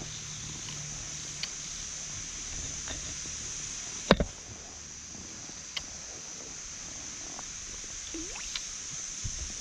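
Small water sounds lapping and gurgling around a float tube resting on calm lake water, over a steady high hiss. A single sharp knock about four seconds in, with a few faint ticks around it.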